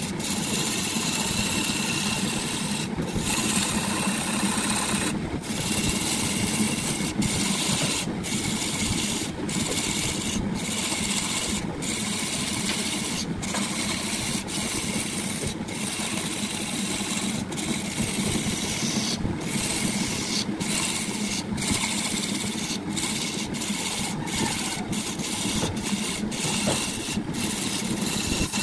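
Wood lathe running, with a hum from its motor, while a tool scrapes the spinning wooden blank in a steady hiss. The hiss breaks off briefly every second or so.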